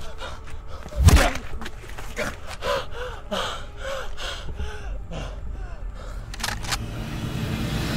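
A heavy thump about a second in, then a person gasping and groaning in short breaths.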